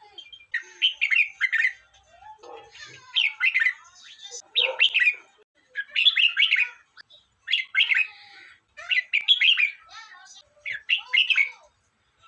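Red-whiskered bulbul singing: short, quick, chirpy song phrases repeated about seven times, roughly every second and a half.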